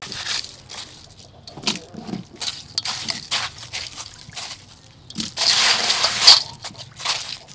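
Hands rummaging through crushed ice in a stainless steel bowl, the ice crunching and clinking against the metal, with the loudest stretch of crunching lasting about a second near the end.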